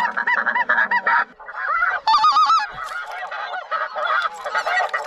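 A flock of snow geese calling overhead, many short honks overlapping without a break, with a higher-pitched run of calls about two seconds in.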